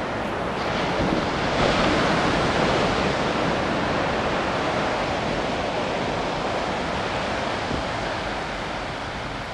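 Small waves breaking and washing up a sandy beach: the surf swells about a second or two in, then slowly eases off.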